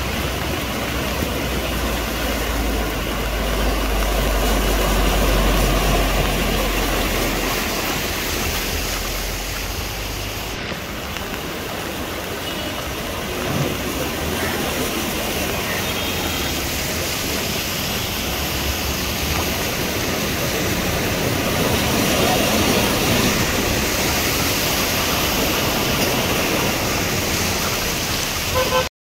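Steady rushing and splashing of floodwater as cars and a motorcycle drive through a flooded street, mixed with traffic noise. A deep rumble runs under it for about the first ten seconds.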